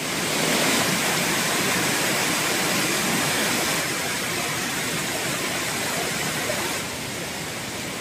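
Rushing water of a waterfall's stream pouring over rock slabs, a steady loud rush close to the microphone that eases slightly near the end.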